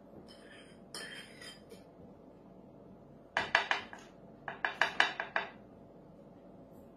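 Metal spoon and knife clinking together, in two quick runs of sharp taps about three and a half and four and a half seconds in, while chocolate is worked off the spoon.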